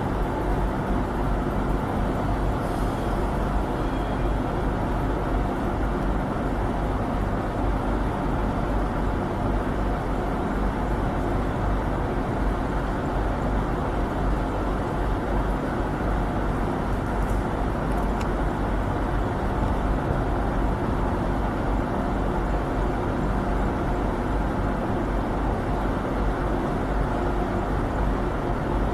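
Steady mechanical running noise of a train, a constant rumble with droning tones that holds unchanged throughout.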